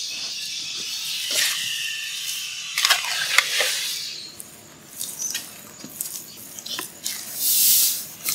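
A hand squeezing and mixing soft, sticky dough in an aluminium basin, in irregular wet strokes. The strokes are heavier in the first half, ease off around the middle, and pick up again near the end.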